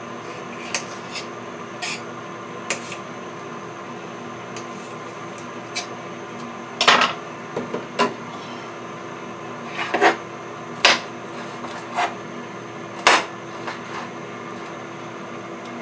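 Kitchen knife slicing a sweet red pepper into strips on a countertop: scattered sharp knocks of the blade meeting the counter, the loudest ones in the second half. A steady low hum runs underneath.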